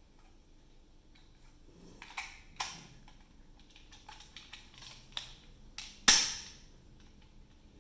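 Hard plastic clicks and knocks from a toy dart pistol being handled and loaded with darts, with one sharp, loud snap about six seconds in.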